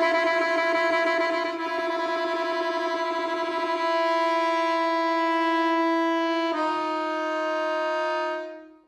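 Solo accordion holding sustained chords in the middle-high register, wavering quickly at first and then steady. The chord changes about six and a half seconds in and fades out near the end.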